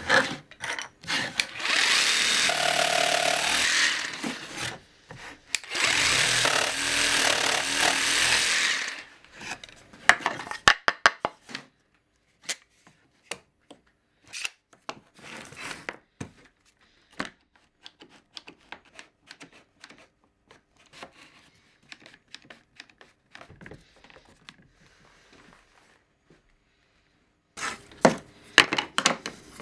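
Jigsaw cutting through MDF in two runs of a few seconds each, then scattered clicks and taps from handling the cut pieces and a quick-grip bar clamp.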